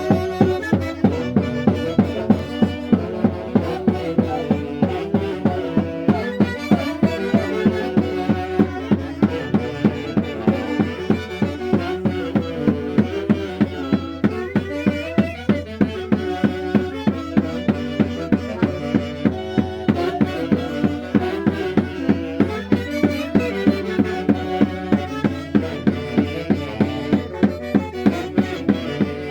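Santiago dance music from Huancayo in Peru's Mantaro Valley: a melody over a steady, even drum beat.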